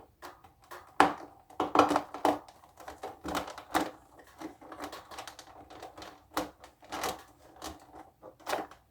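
Irregular clicks and taps of a cable and plastic cable clips being handled and pressed into place under a desk, with a sharper knock about a second in.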